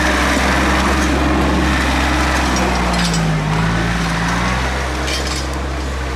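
Tractor engine running steadily. Its note dips and comes back up briefly in the middle, and the sound then grows a little quieter.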